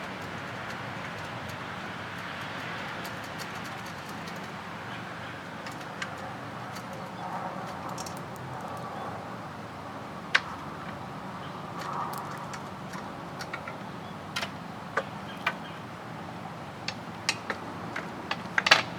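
Light, sharp metallic clicks and clinks of small metal parts or tools being handled, scattered at first and coming more often near the end, over a steady low hum.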